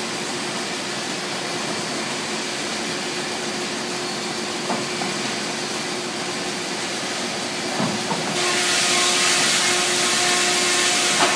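Woodworking machinery and its dust-collection ducting running steadily in a lumber shop: a constant hiss with a steady hum through it. About eight seconds in, the hiss grows louder and brighter and a second, higher hum comes in.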